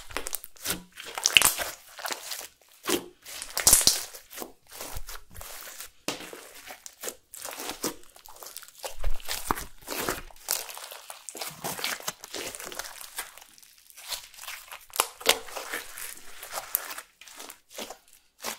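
Glossy glitter slime being stretched, folded and squeezed by hand, giving dense, irregular crackling and popping clicks in bursts as the slime is worked. The sound cuts off suddenly near the end.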